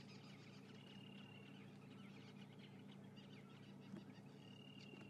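Faint, scattered high chirping and twittering calls, with two short steady whistles, over a low steady hum.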